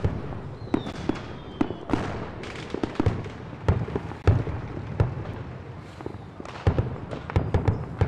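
Fireworks display going off: an irregular run of bangs and crackling pops, with a faint thin whistle about a second in.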